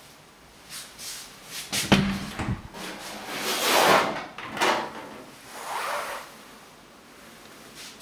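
A door or fitting being opened by hand: a sharp clack about two seconds in, followed by a few rubbing swishes.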